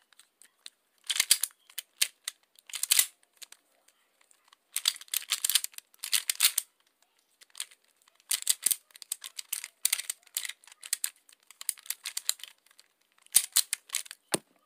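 Pyraminx puzzle being turned fast by hand in a speedsolve: quick runs of plastic clicking and scraping turns, in bursts with short pauses between them.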